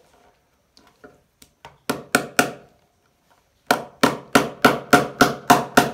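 Pliers used as a hammer, knocking a cable clip's nail into a wooden table top to hold down a power cord: a few light taps, three sharp knocks about two seconds in, then after a short pause a quick, even run of knocks, about four a second.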